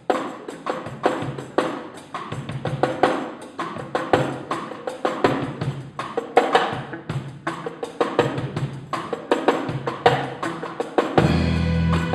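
Live Latin percussion intro: timbales struck with sticks in a quick rhythm, with a drum kit alongside. Near the end the rest of the band comes in with sustained low bass notes.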